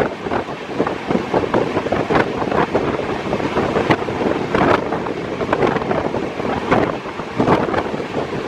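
Indian express train running at speed: continuous rumble with irregular sharp wheel knocks and clatter, and wind buffeting the microphone.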